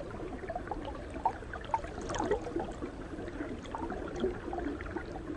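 Soft gurgling of water with many small scattered bubbly pops over a low hiss.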